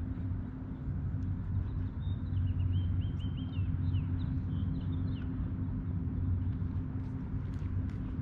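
A motor running with a steady low hum and rumble. About two seconds in, a bird gives a quick series of short descending chirps lasting a few seconds.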